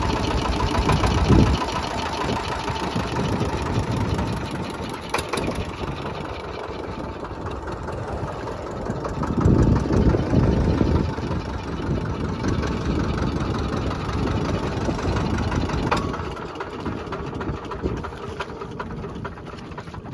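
A fishing boat's engine running steadily while the boat is under way, with wind buffeting the microphone about a second in and again near the middle.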